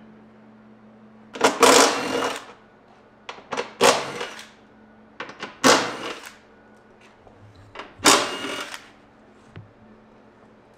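Cordless power tool spinning out the bolts of the exhaust cross brace under a BMW M3, in four rattling bursts of about a second each, with short pauses between them.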